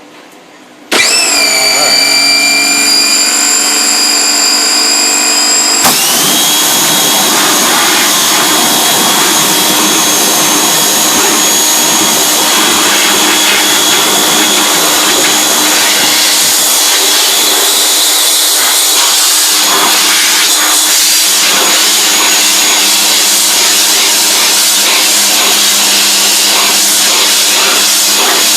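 Pressure washer starting up with a rising whine about a second in, then spraying from about six seconds in, a steady hiss of the water jet over the motor, blasting loosened emulsion out of a screen-printing screen's mesh; the motor winds down at the end.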